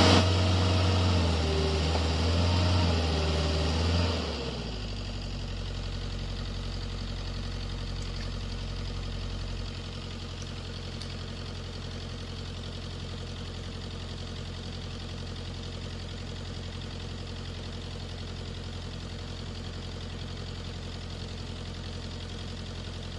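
Excavator diesel engine running: for about four seconds it is working at higher revs, then it drops back to a steady idle.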